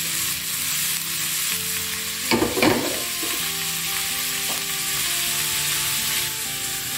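Velvet bean skins, beans and spices sizzling steadily in oil in a frying pan over a gas flame, before any water goes in. A couple of short sharp knocks come about two and a half seconds in.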